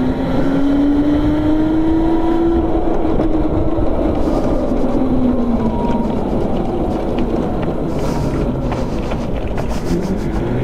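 Go-kart engine running, its pitch rising for about two seconds, then falling and fading as the kart slows after the race-ending flag. A heavy low rumble runs under it throughout.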